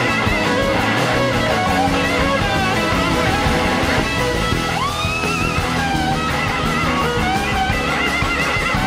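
Live band music led by an electric slide guitar solo on a red Gibson SG-style guitar over drums and the band, its held notes wavering, with a quick slide up in pitch about five seconds in.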